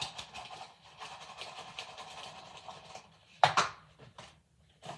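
Crinkling and rustling of a paper wrapper being handled, then one sharp knock about three and a half seconds in as an item is set down on the kitchen counter.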